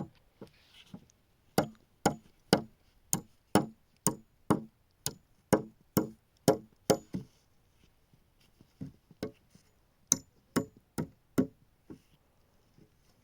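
Steady series of sharp knocking blows, about two a second, for several seconds, then a short pause and a second run of blows.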